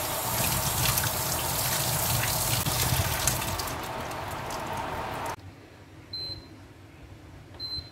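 Tap water pouring onto pumpkin cubes in a stainless steel mesh strainer in the sink, a steady splashing rush that cuts off suddenly about five seconds in. Then two short high beeps from the induction cooktop, about a second and a half apart.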